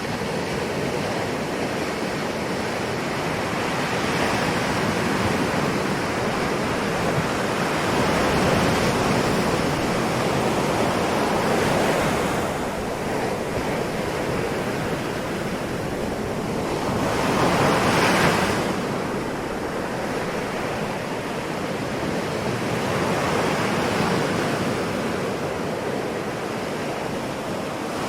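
Ocean surf: waves washing in continuously, swelling and easing every few seconds, with one louder, brighter wave breaking about two-thirds of the way through.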